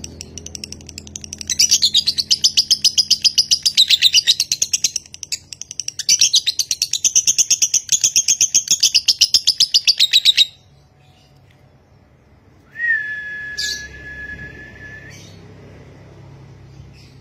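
Fischer's lovebird giving its long, fast chattering song (ngekek), a rapid run of high chirps with two short dips, cut off abruptly about ten seconds in. A couple of seconds later comes a separate steady whistle-like tone lasting about two seconds.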